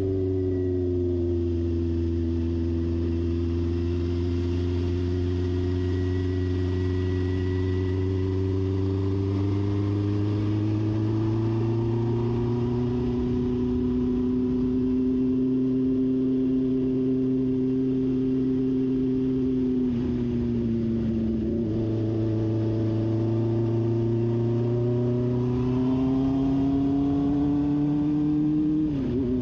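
1973 Honda CB750's air-cooled inline-four engine pulling steadily uphill, its note rising slowly. Its pitch drops sharply and climbs again twice, about two-thirds of the way through and near the end, as gears change.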